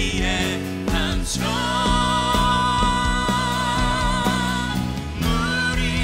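Live worship song: a woman sings the lead into a microphone over a band with a steady beat, holding one long note with vibrato through the middle.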